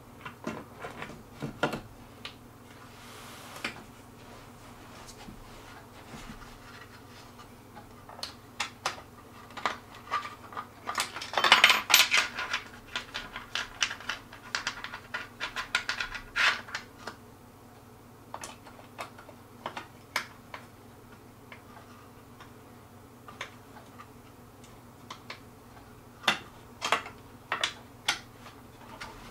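Metal assembly hardware and wooden table parts clinking and knocking as they are handled and fitted by hand: scattered clicks, with a busy flurry of clatter about twelve seconds in, the loudest part.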